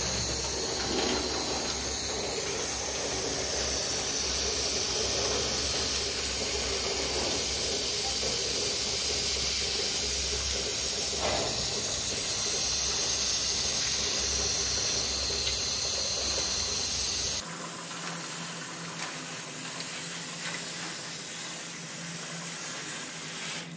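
Garden hose spray nozzle jetting water in a steady hiss onto the hutch's sheet-metal gutters and wire cage floors, washing rabbit droppings away. The low rumble underneath drops out about three-quarters of the way through while the spray goes on.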